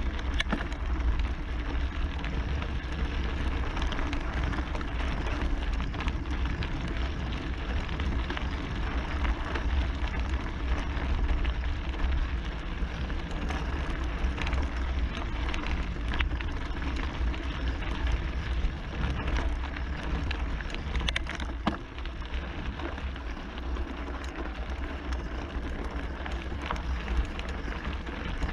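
Scott Spark Comp mountain bike rolling downhill on a gravel road, its knobby tyres crunching and crackling steadily over loose stones, with a low wind rumble on the microphone. It gets a little quieter in the last few seconds as the bike slows.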